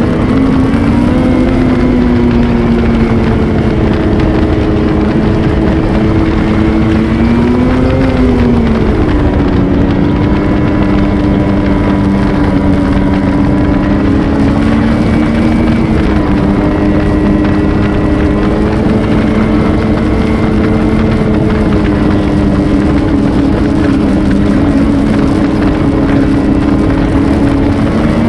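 Ski-Doo Renegade XRS 850 snowmobile's two-stroke twin engine running at speed on the trail. Its pitch rises and falls briefly about eight seconds in, then settles lower and holds mostly steady with small changes in throttle.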